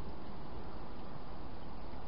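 Steady hiss and low rumble with no distinct events, the background noise of a trail camera's built-in microphone.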